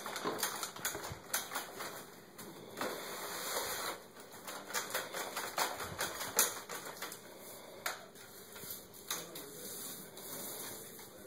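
Paint roller on an extension pole being rolled across a drywall ceiling, the wet nap giving a run of irregular crackling clicks with stretches of rubbing hiss.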